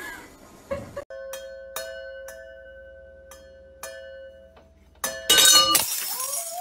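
A cat pawing at wine glasses hanging in a wine rack: several light taps, each leaving a clear ringing glass tone that hangs on. A louder noisy sound takes over near the end.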